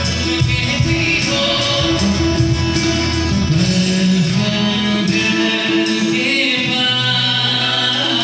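Live band playing a song: singing over strummed acoustic guitars, amplified through the PA.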